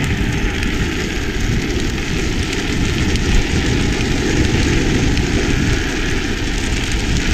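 Drift trikes' hard plastic rear-wheel sleeves sliding sideways on asphalt, a steady rough rumble and scrape, mixed with wind rushing over the moving microphone.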